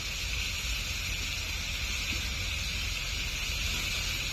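Chicken pieces with chopped onion and tomato frying in oil in a steel kadai, a steady sizzling hiss with a low rumble underneath.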